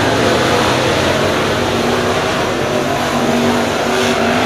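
A field of dirt late model race cars running laps together. Their V8 engines make a loud, steady drone, and one engine's pitch climbs in the second half as a car comes on the throttle.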